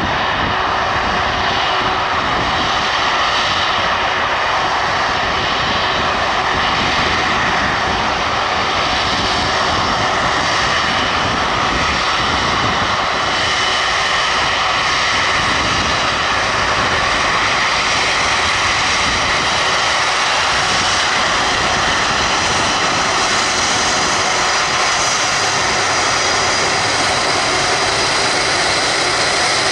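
Airbus Voyager KC3 tanker's twin Rolls-Royce Trent 700 turbofans running at taxi power as the aircraft taxis: a steady jet whine with several high held tones over a constant rush.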